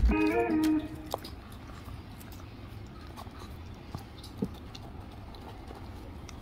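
A music phrase ends about a second in. Then a Shih Tzu chews a dried turkey tendon treat, with faint, scattered gnawing and crunching clicks.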